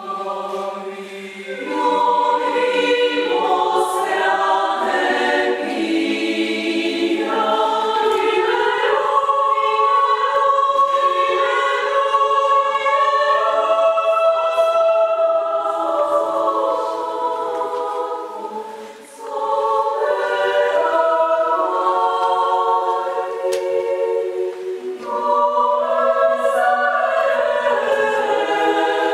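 Women's choir singing in several parts, moving through held chords, with a short break about two-thirds through before the next phrase.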